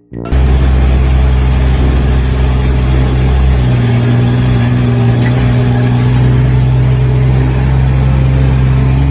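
An engine running steadily and loudly, its low hum shifting to a higher, stronger note about four seconds in.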